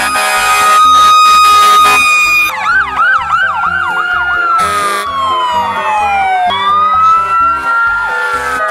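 Emergency sirens from a procession of fire trucks: a steady siren tone for the first couple of seconds, then fast up-and-down yelping sweeps, a long falling wail and a rising wail that holds, with several sirens overlapping.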